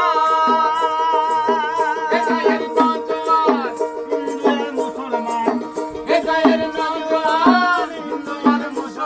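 Background music: an instrumental passage of a Bengali folk song, a wavering melody over held notes and a steady percussion beat.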